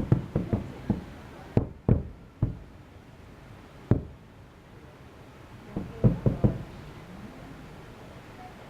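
Distant fireworks bursting: a quick run of sharp bangs, a few scattered single bangs, then three close together about six seconds in, muffled by about three kilometres of distance.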